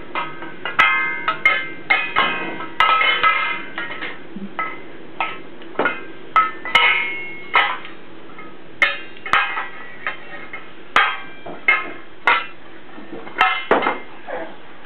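Metal saucepan lids being banged irregularly with a wooden spoon by a baby. The strikes come at uneven spacing, sometimes in quick runs, and each lid rings briefly after it is hit.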